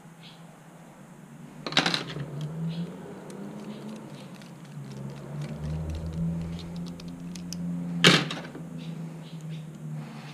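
Small metal parts and a screwdriver being handled and fitted together on a work table: light clicks and ticks, with two sharp knocks, one about two seconds in and one about eight seconds in. A low steady hum runs underneath and is strongest in the middle.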